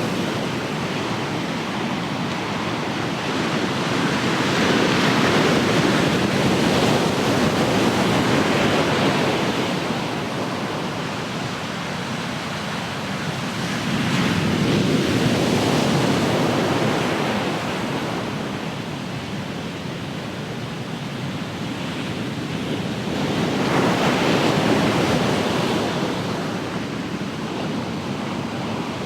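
Ocean surf: waves breaking and washing ashore, a steady rush that swells louder three times, about every nine to ten seconds.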